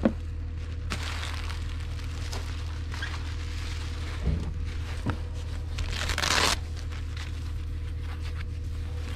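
Foam packing sheets and bubble wrap crinkling and rustling as they are lifted out of a cardboard box. There is a louder rustle about six seconds in and a light knock about four seconds in.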